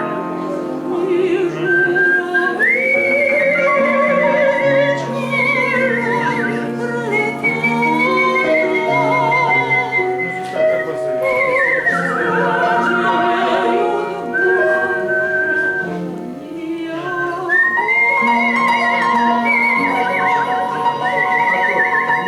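Melodic human whistling with a wide vibrato, carrying a high line above a woman singing and a piano accompaniment; the whistle breaks off briefly a few seconds before the end and comes back in.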